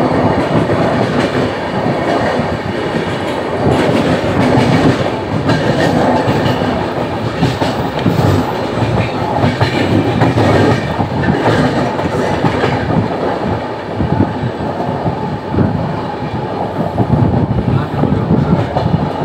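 Indian Railways express train running at speed, heard from aboard: a steady rumble with the clickety-clack of steel wheels striking the rail joints.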